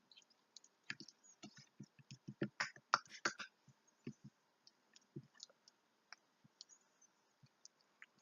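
Fingers poking slime, making sticky clicks and little popping squelches. A quick flurry of pops comes about a second in, then single pops at scattered intervals.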